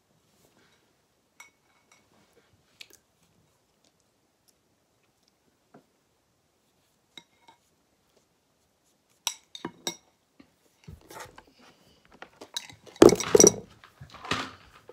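Handling noise from a phone: scattered faint clicks and taps, then a cluster of louder knocks and rubbing as it is picked up and moved against a sweater near the end.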